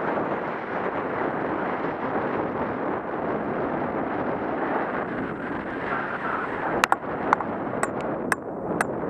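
Steady rush of wind on the microphone and skis sliding through powder snow. From about seven seconds in there is a run of sharp clicks, about seven in two seconds.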